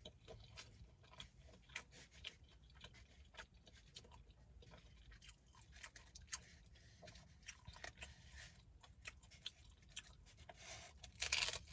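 A person chewing a taco of ground beef, cheese, lettuce and salsa close to the microphone: soft, irregular wet mouth clicks and crunches, with a louder cluster of crunching near the end.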